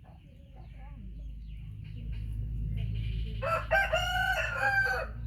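A rooster crowing once: one drawn-out crow of about a second and a half, over a low steady hum.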